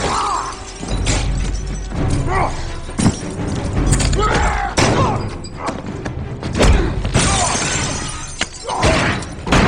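Film fight sound effects: a string of sudden crashes and thuds from blows and bodies hitting walls, with breaking glass and men grunting, over dramatic score music.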